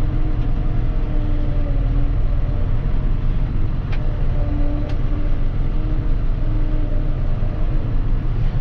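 John Deere tractor's diesel engine running steadily under light load while the tractor drives, heard from inside the cab as a continuous low rumble. There are two faint clicks, about 4 and 5 seconds in.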